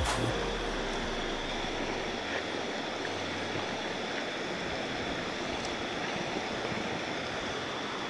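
River water flowing: a steady, even rushing noise that does not change.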